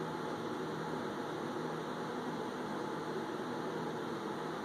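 Steady low hum and hiss of room tone, with no distinct events.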